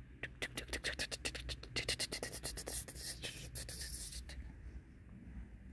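A quick run of dry crunching and scratching clicks, several a second, that stops about four seconds in: footsteps on a floor strewn with dry leaves and wood debris.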